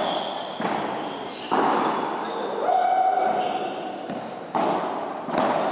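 Padel ball being struck by rackets and bouncing on the court, several sharp knocks that ring on in a reverberant indoor hall, with spectators' voices behind.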